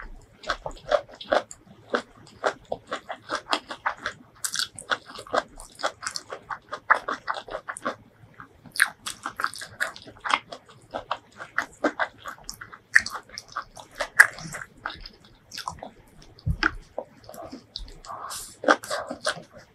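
Mouth sounds of eating: chewing and crunching on mouthfuls of white rice and stir-fried okra, with many quick wet clicks and smacks in an uneven rhythm.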